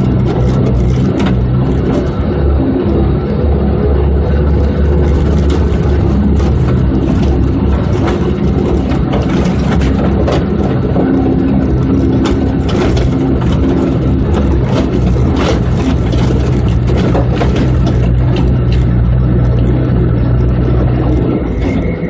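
Off-road four-by-four's engine running steadily as it drives over a rough dirt trail, with frequent short rattles and knocks from the vehicle bouncing over the ruts.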